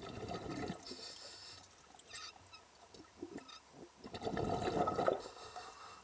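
Water gurgling and sloshing around an underwater camera, surging twice: in about the first second and again from about four to five seconds in. Scattered small clicks come in between.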